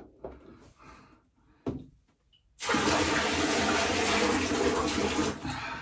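A short knock, then a rush of running water for about three seconds that tails off near the end.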